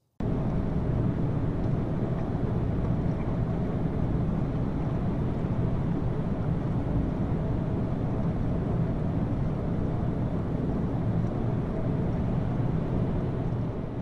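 Bose Sleepbuds 2 'Rinse' noise-masking sound: a steady, even rushing noise, heaviest in the low end, that cuts in abruptly and runs without change.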